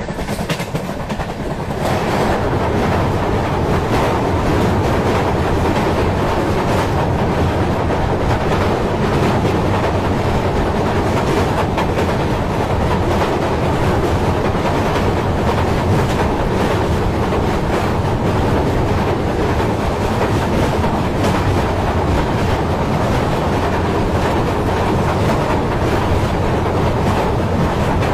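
Train running across a railway bridge over a river: a steady noise of wheels on rails that builds up over the first two seconds and then holds.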